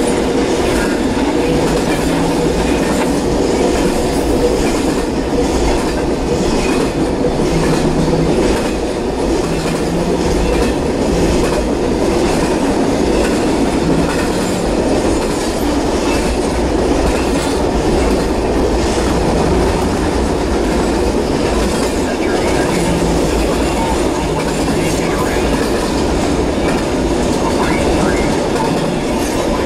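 Norfolk Southern double-stack intermodal freight train rolling past: a steady, loud rumble of container well cars with the clickety-clack of the wheels on the rails.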